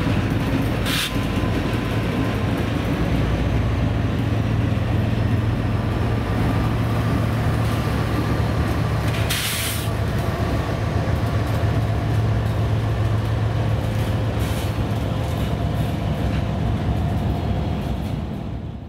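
Four-unit light-engine diesel locomotive consist (two EMD SD40-2s and two GE ES44C4s) passing at close range: a steady, loud diesel engine drone with wheel and rail noise. Two brief bursts of hiss, about a second in and about nine and a half seconds in.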